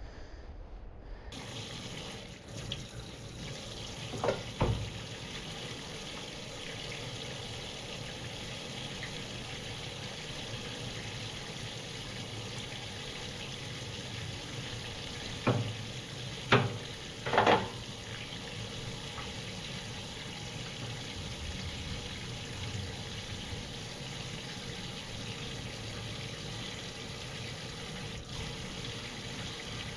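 Steady rush of running water, with a few short knocks: two about four seconds in and three more around the middle.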